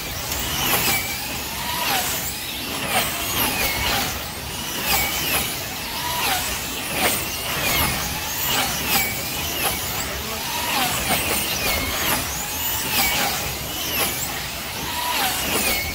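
Wing slot cars racing round a banked track, their small electric motors whining past one after another, each pass rising and falling in pitch.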